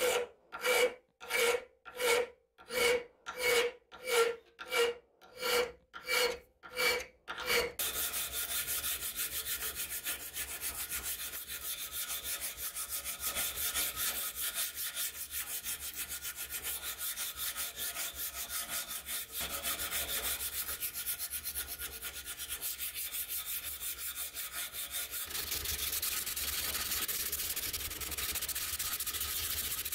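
Hand file scraping across a rusty steel tool part held in a vise, about one stroke a second for some eight strokes. It then gives way to fast, continuous hand sanding of the steel with abrasive paper, which gets louder near the end.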